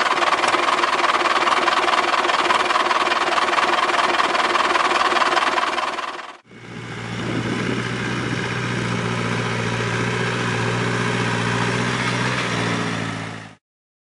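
Tractor diesel engine running hard, a dense, loud sound that cuts off sharply about six seconds in. A second tractor engine follows, running steadily with a strong low hum, until the sound stops abruptly near the end.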